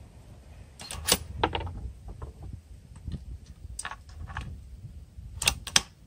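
Bolt of a Savage bolt-action .243 Winchester rifle being worked after a shot. A cluster of metallic clicks comes about a second in as the bolt is lifted and drawn back, then scattered single clicks, and two sharp clicks near the end as the bolt is run forward and closed.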